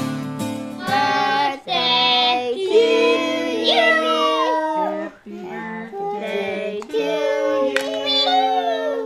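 A child singing, with some music under the voice.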